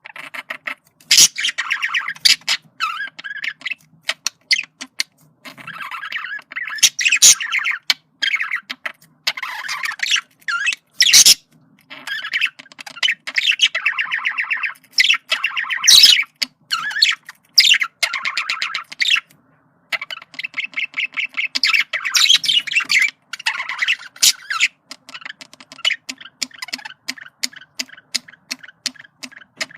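Male budgerigar chattering warble: a fast run of chirps, squawks and sharp clicks in bursts with short pauses between them.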